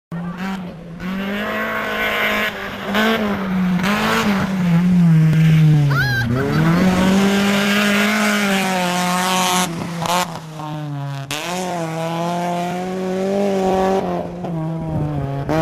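Rally car engines at high revs, pitch climbing and dropping through gear changes as the cars pass. It comes as a run of short clips cut one after another, each starting abruptly.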